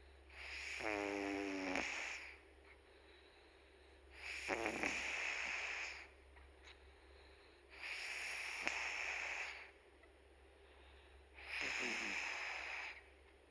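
Domestic cat snoring: four slow breaths, about one every three and a half seconds, some opening with a short buzzing rattle.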